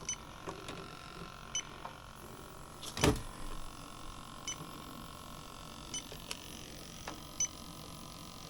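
Electronic refrigerant leak detector ticking with short high beeps every second or so, a slow idle rate that shows no refrigerant is being picked up. A single sharp click about three seconds in.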